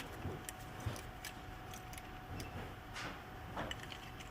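Scattered light clicks and taps of small hardware being handled on an opened laptop, with a brief rustle about three seconds in.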